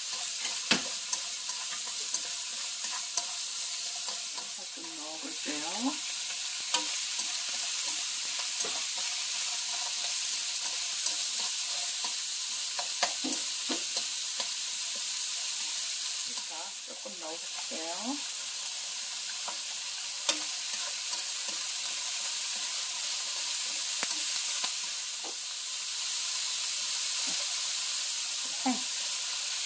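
Diced vegetables (carrot, cucumber, cabbage) sizzling in oil in a pan while being stir-fried with a wooden spatula: a steady frying hiss with scattered knocks and scrapes of the spatula against the pan. The sizzle dips briefly three times.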